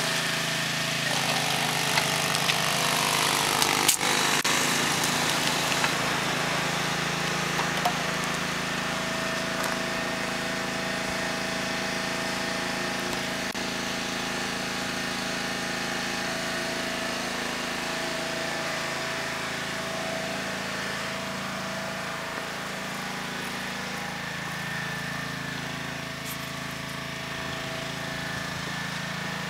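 Steady mechanical drone with a low hum, slowly growing quieter.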